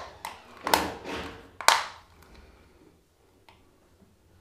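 Plastic Hylec Debox junction box lid being squeezed shut by hand: two sharp plastic snaps about a second apart, the first under a second in. After that, quiet handling with a faint tick or two.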